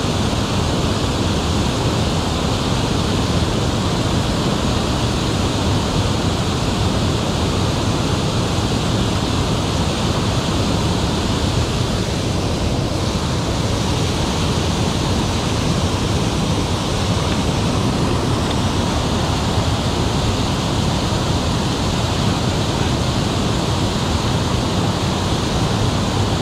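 Water spilling over a wide low dam and crashing into the pool below, a steady, unbroken rushing noise.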